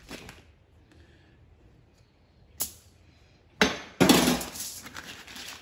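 Butter being cut and handled on aluminium foil: a sharp click about two and a half seconds in, then two sudden loud crinkles and a fading crackle of foil and the butter's foil wrapper as a strip of butter is laid down on the foil sheet.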